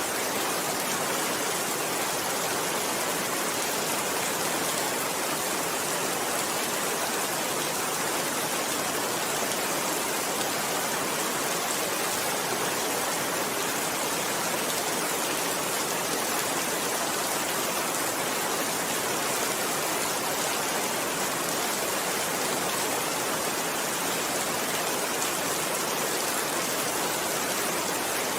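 Steady rain falling, an even unbroken hiss of drops with no thunder.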